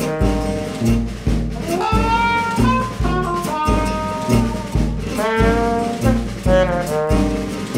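Jazz music with brass horns playing a melody over a steady bass line.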